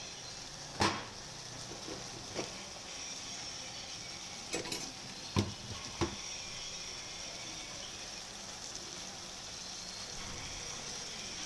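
Food frying in a pan with a steady sizzle, and a spoon knocking against the pan a few times in the first half as it is stirred.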